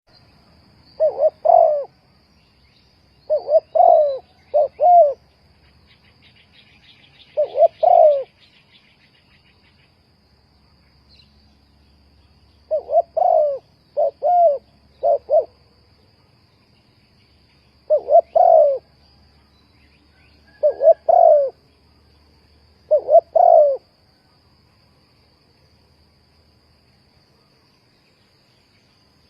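Spotted dove cooing: repeated phrases of two or three low, soft coos every few seconds, falling silent for the last few seconds. A steady high insect trill runs behind.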